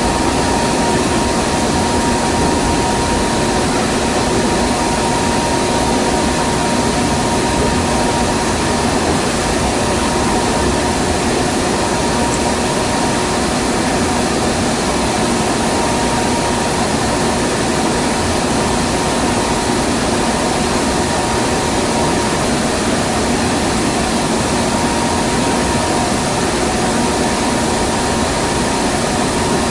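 Kintetsu "Raku" train running at a steady speed, heard inside the passenger cabin: an even rumble and hiss of running noise with a few constant hums.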